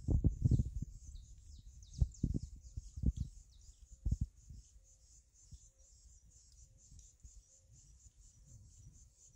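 An insect chirping in a steady high pulsing trill, about four pulses a second, with a few short high bird chirps in the first three seconds. Low thumps on the microphone are the loudest sounds, at the start and again between about two and four seconds in.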